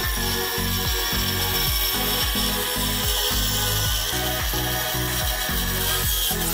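Background music with a regular, repeating bass pattern, over a small bench-top table saw cutting a pine board that is fed through on a miter gauge.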